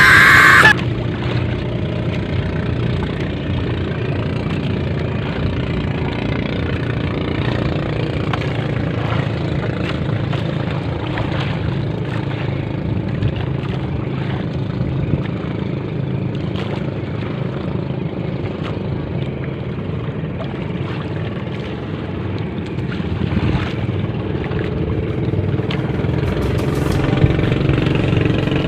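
Small boat engine idling steadily. A loud snatch of music cuts off within the first second.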